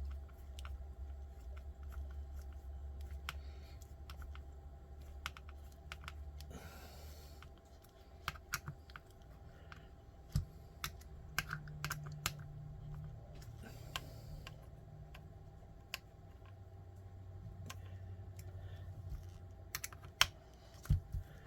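Light, irregular clicking and tapping of small plastic RC kit parts and screws being handled and fitted, with a few sharper clicks about halfway and near the end. A low hum runs under the first third and then drops away.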